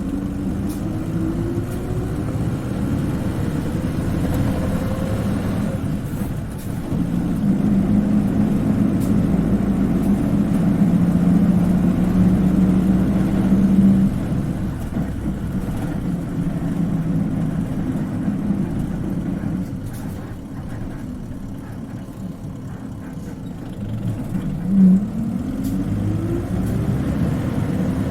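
Isuzu Cubic KC-LV380N city bus engine accelerating, its pitch rising over the first few seconds, then running steadily, easing off about twenty seconds in and rising again as the bus pulls away near the end. This bus's engine has a distinctive high-pitched sound when pulling away. A short loud sound stands out just before the second rise.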